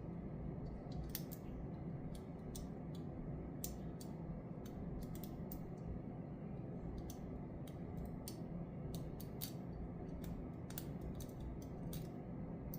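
Lock-picking tools working in the keyway of a vintage 70mm brass Yale padlock: small, irregular metallic clicks and ticks as the pins are worked toward opening the shackle, over a steady low background hum.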